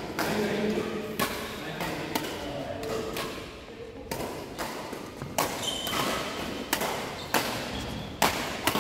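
Badminton rackets striking a shuttlecock in a doubles rally: about a dozen sharp hits, irregularly spaced, echoing in a large sports hall.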